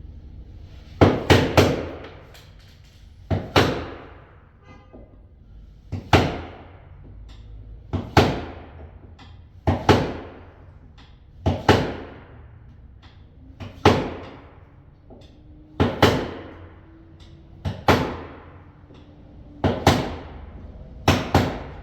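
Hammer striking a chisel, cutting out around a deadbolt plate so it won't scrape: sharp blows, often two or three in quick succession, about every two seconds, each ringing briefly.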